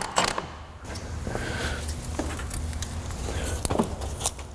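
A few light clicks and knocks of tools and metal parts being handled in a car's engine bay, over a low steady hum.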